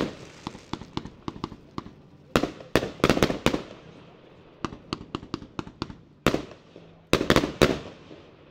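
A 156-shot consumer fireworks cake (0.8–1.2 inch calibre) firing in sequence: sharp reports in quick clusters, loudest about two and a half seconds in and again near the end, with lighter, evenly spaced pops between them.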